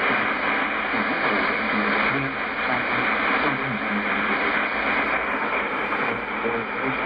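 Yaesu FTdx10 receiver's audio tuned to an AM shortwave signal near 11.885 MHz: steady static and hiss with a weak broadcast voice faintly underneath.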